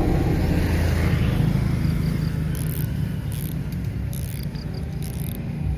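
Outdoor ambience: a steady low rumble with faint, short high chirps a few times, typical of insects.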